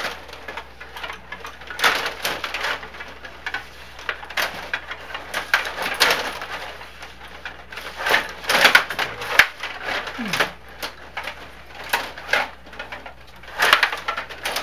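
Stiga table hockey game in play: the metal control rods and plastic players clacking and rattling in quick runs of knocks, in several bursts with quieter gaps between.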